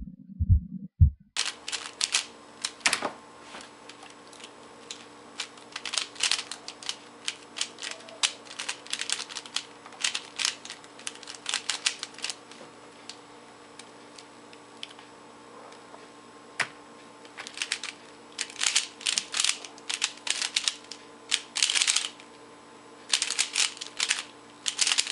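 A 3x3 Rubik's Cube being turned fast by hand: rapid clattering clicks of the plastic layers turning, in bursts with short pauses, over a steady faint hum.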